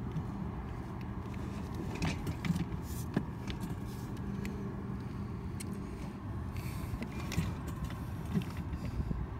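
An engine idling steadily with a low hum, with a few light clicks and knocks scattered through.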